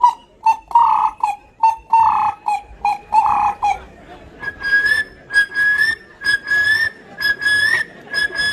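A child imitating a bird call by whistling: about five pairs of a short note and a longer note, then from about four seconds in a higher note repeated several times in a row.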